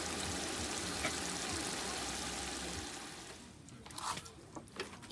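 Steady watery hiss from the pot of stew cooking on the fire, fading out about three seconds in, followed by a few light knocks and clinks of utensils or cookware.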